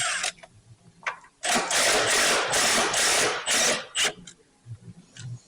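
Handheld power tool running in several short bursts, one after another, backing engine bolts out. The bursts start about a second and a half in and stop about two and a half seconds later.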